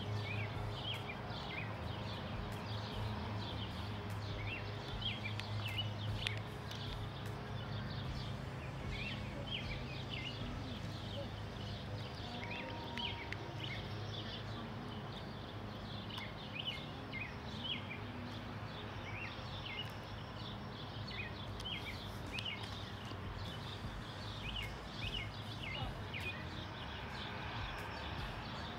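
Birds chirping over and over in short calls, over a steady low rumble.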